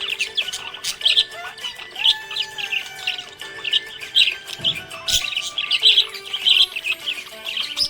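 Budgies chirping rapidly and continuously, short high chirps tumbling over one another several times a second, with steadier lower warbling tones and glides beneath.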